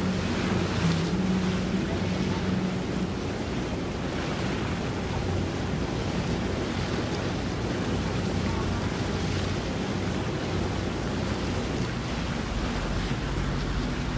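Wind noise on the microphone over water sounds, with a boat engine humming low for the first few seconds and again near the end.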